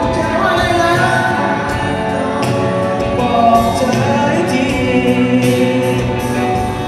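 Live band playing a song: sung vocals over electric guitars and a drum kit with cymbal hits.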